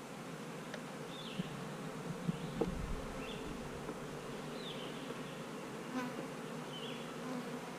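Honeybees buzzing steadily in and around an opened hive, with a few light knocks and clicks scattered through.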